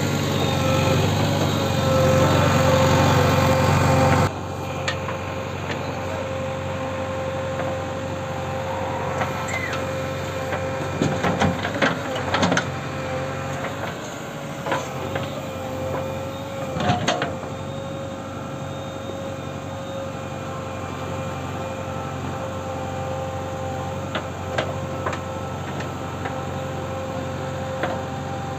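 JCB 3DX backhoe loader's diesel engine running steadily while the backhoe digs, with a steady whine over it. The level drops suddenly about four seconds in, and a few short knocks and scrapes of the bucket in the soil come around the middle.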